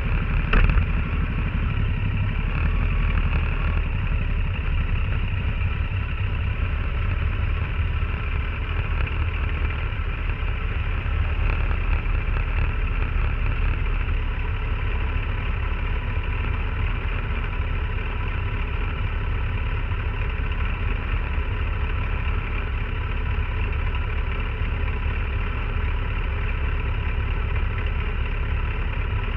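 An engine idling steadily, with a brief click about half a second in.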